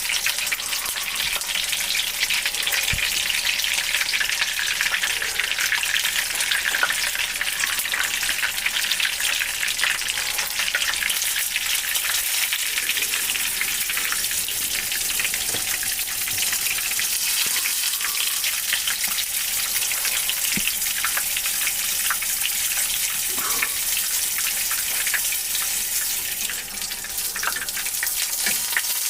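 Menchi katsu deep-frying in hot oil in a frying pan: a steady sizzle with fine crackling.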